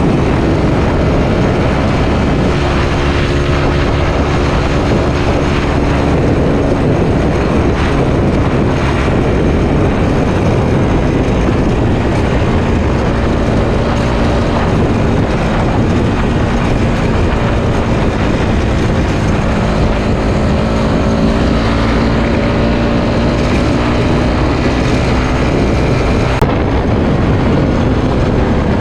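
Suzuki Satria FU 150 fuel-injected single-cylinder four-stroke engine running under way, its note sliding up and down as the throttle and gears change. Heavy wind rush runs over it.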